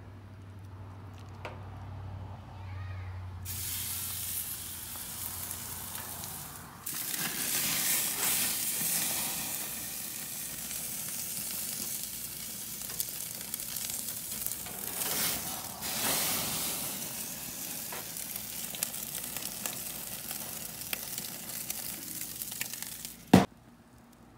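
Steak sizzling in a hot pan: a low hum for the first few seconds, then the sizzle starts and swells louder twice. A single sharp knock near the end, after which the sizzle cuts off.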